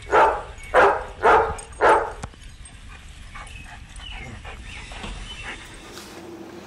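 A dog barking four times in quick succession, each bark short and loud.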